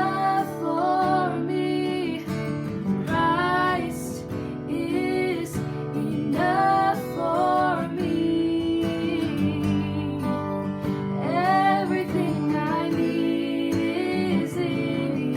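Worship song: a woman singing over acoustic guitar accompaniment.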